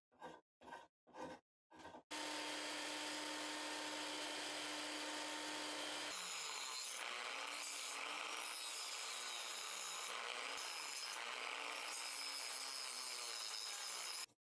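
Quick strokes of a thin-bladed hand saw through wood, about four a second. About two seconds in, a small rotary tool with a cutoff wheel starts with a loud, steady whine. From about six seconds in, its pitch dips and recovers again and again as the wheel bites into the wood cutting notches, and it cuts off suddenly near the end.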